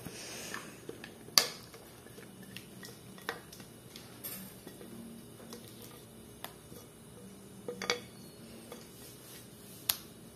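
Thick bread batter being scraped out of a glass bowl with a spatula onto a metal baking tray: a handful of sharp taps and clicks of the spatula against the glass bowl, the loudest about a second and a half in.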